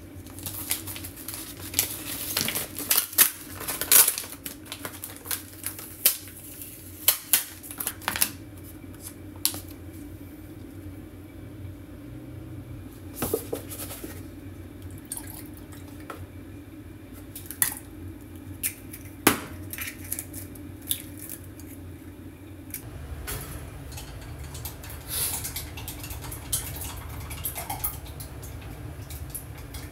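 Scattered sharp clinks and knocks of dishes and utensils being handled, thick at first and sparser later, over a steady low hum.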